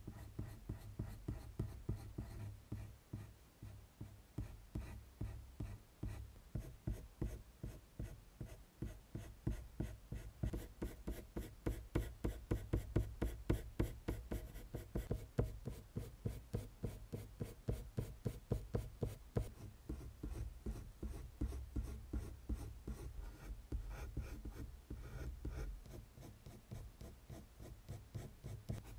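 Colored pencil scratching on paper in quick, short, repeated strokes, about three a second.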